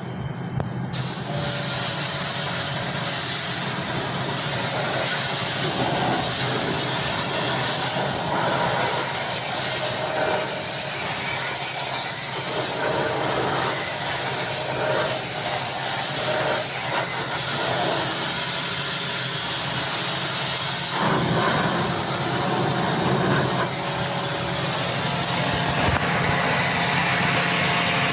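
A pressure washer sprays water onto an air conditioner's outdoor condenser unit. A steady loud hiss of spray sits over the washer's motor hum. The spray starts about a second in and its sound changes near the end.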